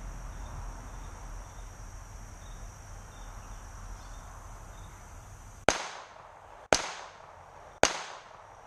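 Three pistol shots about a second apart, each a sharp crack with a short echoing tail. Insects chirr steadily in the background.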